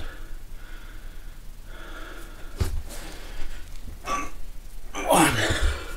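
A man breathing with effort while doing sit-ups, with a soft thump about two and a half seconds in and a loud, sharp breath near the end.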